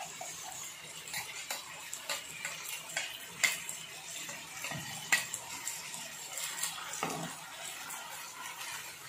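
Ground masala paste being emptied from a stainless-steel mixer-grinder jar into a pan of frying chicken: a soft steady sizzle with scattered light metallic clicks and taps from the jar and utensils.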